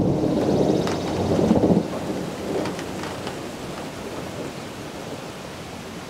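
Thunder rumbling low and loud, then dying away after about two seconds, with rain falling steadily.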